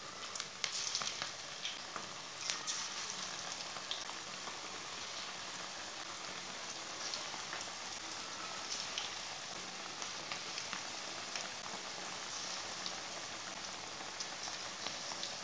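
Cabbage pakoras in gram-flour batter deep-frying in hot oil: a steady sizzle dotted with small scattered pops and crackles.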